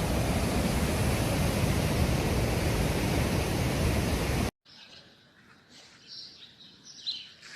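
Loud, steady rushing noise with a heavy low rumble, cutting off abruptly about four and a half seconds in; then a quiet outdoor background with a few short bird chirps.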